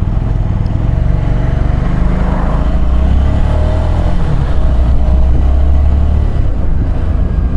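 Motorcycle on the move, heard from a rider-mounted camera: the engine running under a heavy, steady low rumble of wind and road noise, with a faint wavering engine note in the middle.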